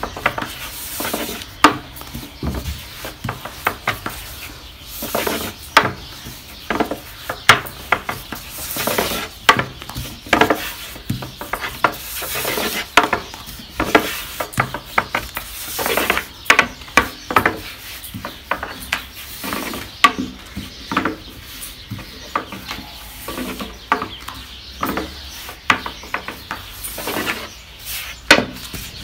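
A rolling pin knocking and rubbing against a board as dough is rolled out, with irregular sharp knocks, one or two a second.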